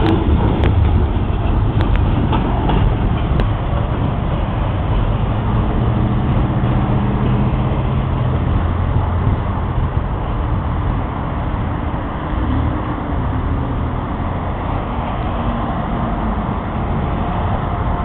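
Slow freight train rolling along a spur line: a few sharp wheel clicks in the first few seconds, then a steady low rumble.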